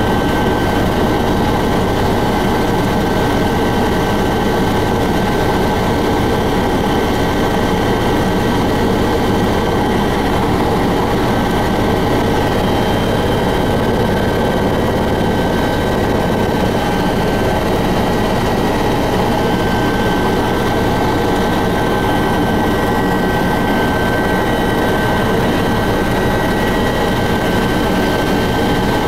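Helicopter cabin noise in flight: a loud, steady engine and rotor din with a few steady high whining tones on top, heard from inside the cabin.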